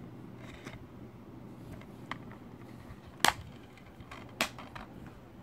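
White plastic DVD keep case being handled and snapped shut: a light click, then two sharp plastic clicks about a second apart, the first the loudest.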